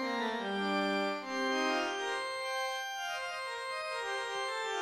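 Casio MT-520 keyboard playing its pipe organ voice through its built-in speaker: a slow line of held, overlapping notes that steps down, climbs, and falls again.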